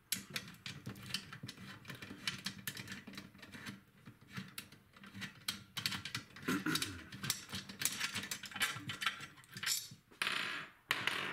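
Rapid light clicks, taps and rattles of an electronic kick drum pad and its hardware being handled, with a short scraping swell about six and a half seconds in and another near the end.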